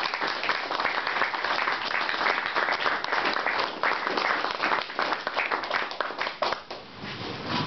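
Audience applauding, thinning out and dying away near the end.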